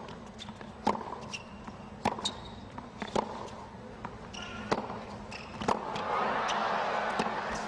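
Tennis ball struck by rackets in a baseline rally, sharp hits about once a second, with short high squeaks between shots. Crowd noise swells about six seconds in.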